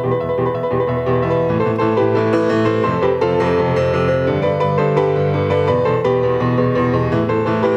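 Solo grand piano played with both hands: many notes in quick succession over held bass notes.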